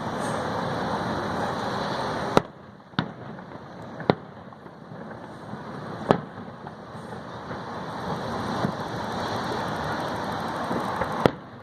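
Aerial fireworks shells bursting: about five sharp bangs, the loudest a little over two seconds in and near the end, over a steady rushing, crackling noise that fades after the first bang and builds again in the second half.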